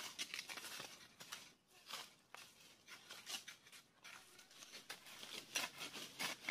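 Irregular scraping and crunching of hands digging through sandy stream-bed soil for freshwater mussels.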